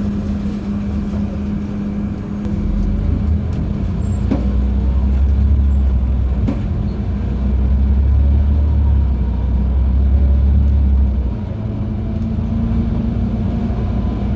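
LiAZ-5292.71 natural-gas city bus driving, heard from inside: a steady engine and drivetrain hum, with a deeper engine rumble building about two seconds in and easing off near the end, and a couple of light knocks.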